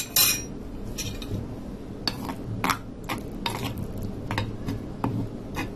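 Wooden pestle mashing and scraping soft boiled papaya against a ridged mashing bowl, in short irregular strokes about two a second; a metal spoon scrapes the bowl as well.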